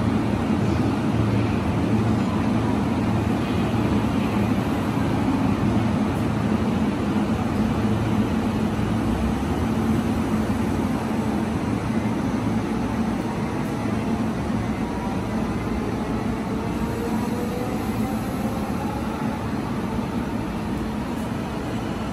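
JR East E233-series electric commuter train pulling out of a station platform, with a steady rumble of wheels and running gear and a faint motor whine that changes pitch as the train gathers speed.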